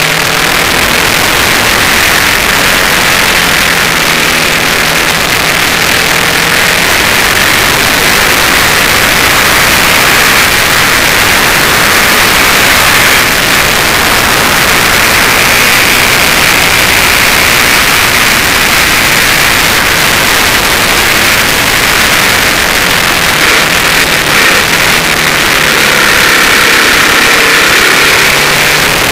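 Loud, steady wind rush on a side-mounted camera's microphone as a Suzuki TL1000S rides at track speed, with the bike's V-twin engine faintly audible underneath. The engine note shows through more in the first few seconds and again near the end.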